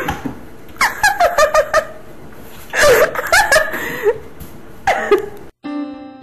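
A person laughing in several bursts, with a quick run of short ha-ha's about a second in and a longer laugh about three seconds in. The laughter cuts off near the end and acoustic guitar music begins.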